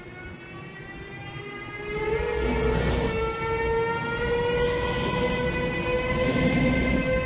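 Siemens Vectron electric locomotive passing close with an intermodal freight train: a whine of several tones that rises slowly in pitch, over wheel-on-rail rumble that gets much louder about two seconds in as the locomotive draws level.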